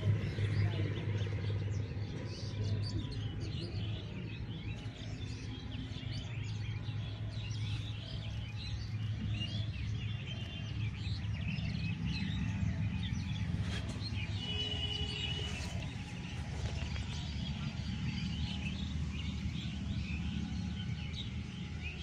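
A chorus of many small birds chirping and twittering throughout, with a couple of short, clear whistled notes about two-thirds of the way in, over a steady low rumble.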